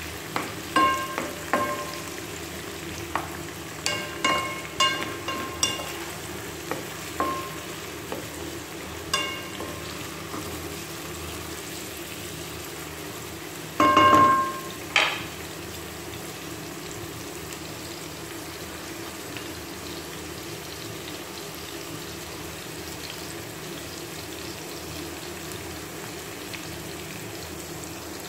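Chopped onions and green chillies sizzling steadily in hot oil in a pan. Over the first ten seconds or so a wooden spatula stirs them and knocks against the pan, which rings briefly at each knock, with two louder knocks a little past the middle; after that only the sizzle goes on.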